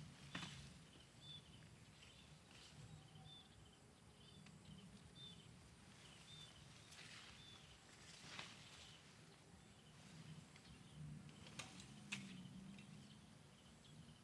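Quiet outdoor ambience: faint short high chirps repeat about every second through the first half, with a few soft rustling clicks.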